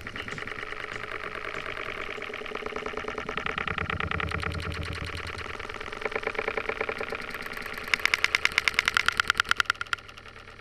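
Small Suzuki 2.5 hp single-cylinder four-stroke outboard on a kayak running steadily with a fast, even pulse. About eight seconds in, a louder rapid clicking, about seven clicks a second, lasts some two seconds.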